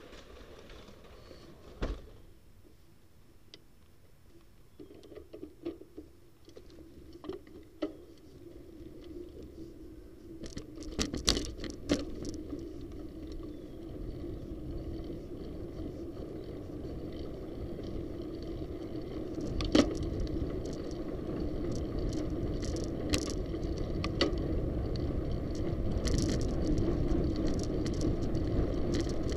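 A bicycle being ridden on a paved street: a steady hum of tyres and wind that builds from about five seconds in and grows louder as the ride picks up speed, with sharp rattles and knocks from the bike over bumps.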